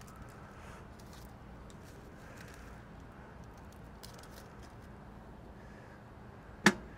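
Faint handling and crinkling of aluminium-foil packets as they are set on the grate of a portable propane grill, over a low steady background. Near the end there is one sharp knock as the grill's lid is shut.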